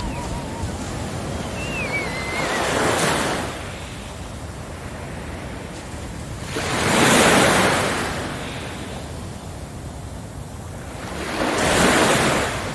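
Sea waves breaking on a beach: three waves build, crash and wash back, about four to five seconds apart, over a steady surf hiss.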